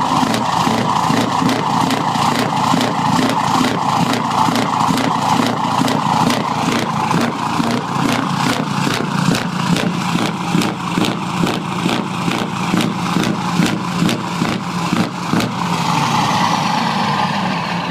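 Scania R580's V8 diesel engine running with a regular pulsing, about three pulses a second. The pulsing stops about 15 seconds in, and a falling whine follows near the end.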